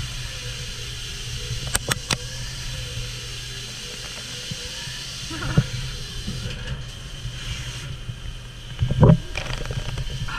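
Doosan Lynx 220LMC CNC lathe running, turning a 7075 aluminium billet with coolant spraying against the door window: a steady low hum under a high hiss. A few sharp clicks come about two seconds in, and a heavier knock comes near the end.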